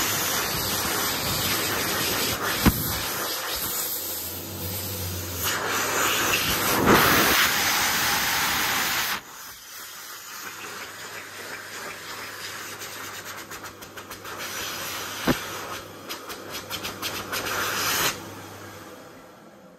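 Hokwang (Dolphin) stainless-steel hand dryer blowing air over a hand, a steady rushing hiss that is loud for the first nine seconds, then quieter with a low motor hum, dropping away about 18 seconds in.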